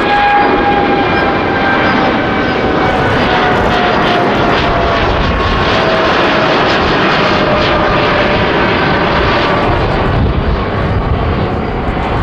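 Boeing 787-9's Rolls-Royce Trent 1000 jet engines at takeoff thrust: a loud, steady rush with an engine whine that slowly falls in pitch.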